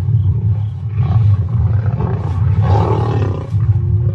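Lions and spotted hyenas fighting: a continuous low growling, with loud snarls about a second in and again from just past two seconds to about three and a half. A long, drawn-out call begins near the end.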